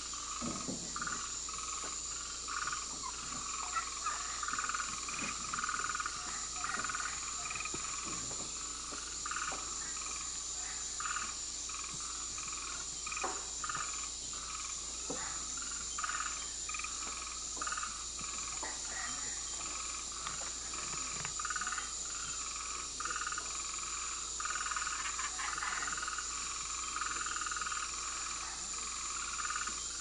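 Rainforest night chorus: a steady, high insect drone under many frogs calling in short, repeated notes that overlap irregularly, with a few sharp clicks scattered through.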